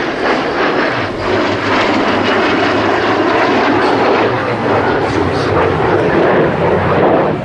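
Steady, loud jet noise from the AMX's single Rolls-Royce Spey turbofan as the jet flies a low display manoeuvre overhead.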